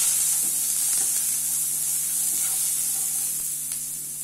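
Boiled peanuts with onion and curry leaves sizzling in hot oil in a nonstick kadai, a steady hiss that eases a little near the end, with a few light clicks from stirring.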